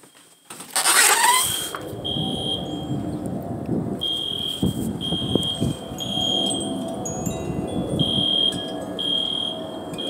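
A high-pitched electronic alarm going off in the neighbourhood: one steady tone beeping about once a second, each beep about half a second long, with a couple of beats skipped. A brief loud rush of noise comes about a second in.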